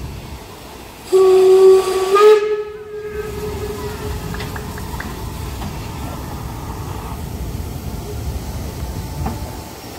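Steam locomotive whistle: one long steady blast starting about a second in. Its pitch steps up slightly partway through, and it fades after about three seconds, leaving a steady hiss and rumble.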